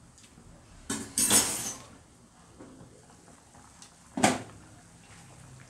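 Glass lid lifted off a pot of boiling corn with a clatter about a second in, then a single sharp knock of cookware a few seconds later.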